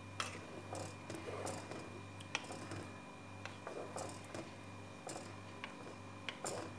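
Wooden spoon stirring yogurt sauce with dumplings in a pot: soft wet swishes with irregular light clicks of the spoon against the pot, over a steady low hum.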